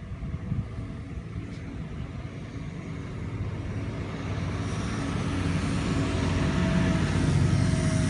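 Wind buffeting the microphone, with the whine of a WLToys V977 electric RC helicopter's motor and rotor growing louder from about halfway in as it flies in close.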